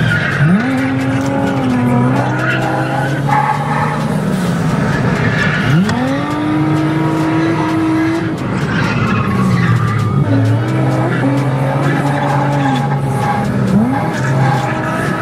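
A drift car's engine revving hard and falling back several times as the car slides through corners, with tires squealing. A second engine holds a steadier note underneath.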